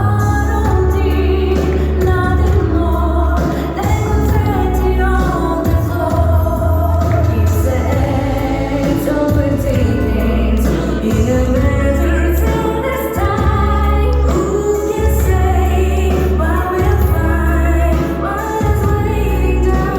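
Music with singing over a steady, heavy bass.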